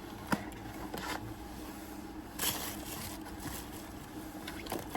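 Packaging being handled as a product box is opened: a sharp click about a third of a second in, a few light taps, and a brief rustling scrape about two and a half seconds in.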